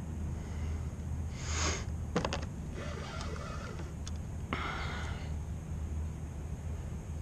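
Two short hissing exhales and a few sharp clicks from the angler fighting a hooked flathead catfish on a rod and reel, over a steady low rumble of wind on the microphone.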